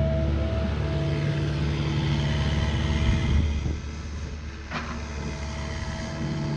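Cat mini excavator running and working, its diesel engine and hydraulics giving a steady hum as the boom and house swing. The sound eases a little just past halfway, and one sharp knock comes near three-quarters through.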